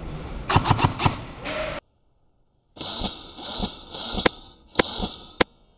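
Airsoft guns firing: a quick run of about four sharp cracks in the first second, then, after a second of dead silence, three single sharp cracks about half a second apart.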